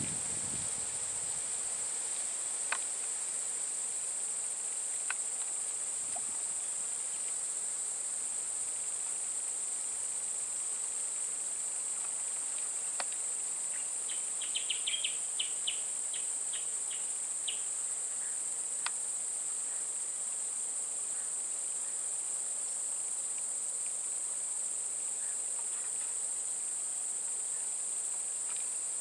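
Insects droning in a steady, unbroken high-pitched chorus, with a few faint clicks and a short run of rapid chirps about halfway through.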